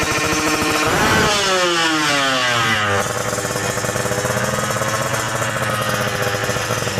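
Kawasaki Ninja R/RR two-stroke single-cylinder engine through an aftermarket racing exhaust. It runs steadily, is revved up about a second in, lets its revs fall away over the next two seconds, then settles to a steady idle.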